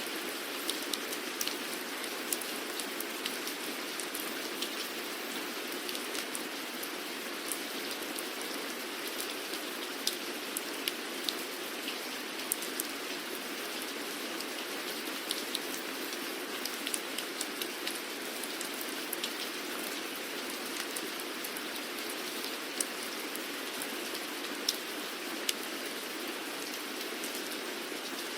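Steady rain falling, a continuous hiss with many scattered sharp drop ticks.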